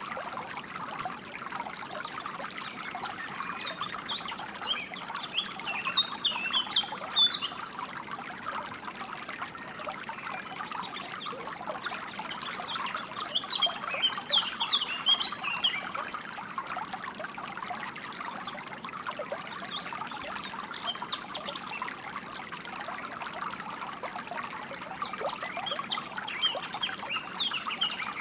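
A stream trickling steadily over stones, with songbirds chirping in short bursts of quick high notes every several seconds.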